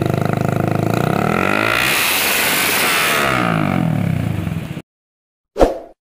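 Motorcycle engine running loud through a Lone Rider stainless aftermarket slip-on muffler, revved up and held, then cut off abruptly near the end. A short, sharp sound effect follows.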